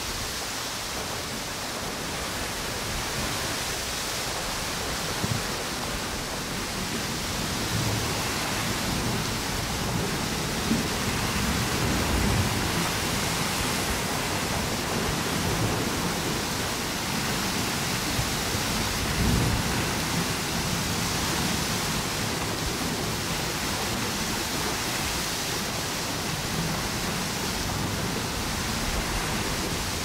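Strong wind and ocean surf on a beach: a steady, dense rushing noise with gusty low rumbles, swelling somewhat louder from about 8 seconds in.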